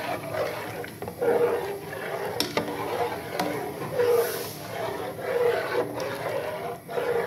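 Steel spoon stirring simmering milk-and-rice kheer in a metal pot, scraping through the thickening milk, with a few light clinks of the spoon against the pot.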